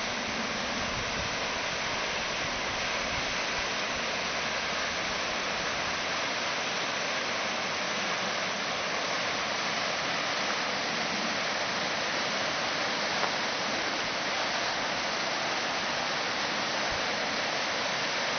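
River in high water rushing over rapids: a steady, even rush of turbulent water.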